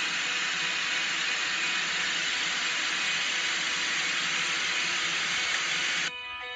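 A steady, even hiss like static or rushing air, cutting off suddenly about six seconds in as guitar music comes back.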